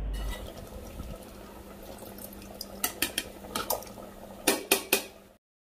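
Steel ladle clinking and scraping against an aluminium pot and a steel plate as ground coconut paste is scraped into the curry: scattered taps, then three sharp knocks in quick succession near the end, after which the sound cuts off suddenly.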